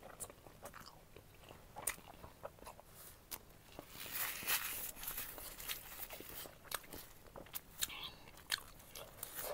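A person chewing food close to the microphone: many short, wet mouth clicks and smacks, with a louder, noisier stretch of eating about four seconds in.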